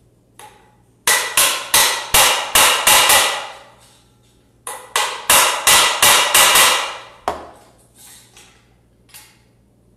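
Plastic-faced mallet tapping the armature of a Bosch GKS 140 circular saw home into its gear housing. The taps come in two quick runs of about seven, roughly three a second, then one more strike and a few lighter taps.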